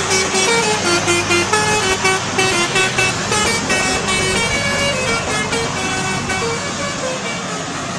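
Bus 'telolet' horn, a multi-tone musical air horn playing a quick tune of short notes that change pitch several times a second, over road noise; the tune trails off near the end.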